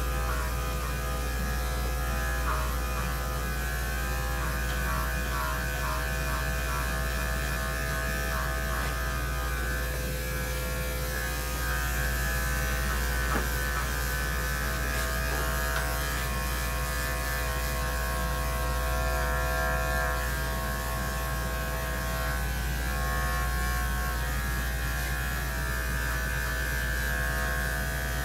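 Corded electric dog grooming clippers running steadily as they clip the coat on a large dog's foreleg.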